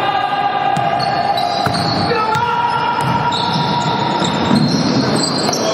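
Basketball dribbled on a wooden gym floor during play, echoing in a large hall, under steady held tones that change pitch every second or two.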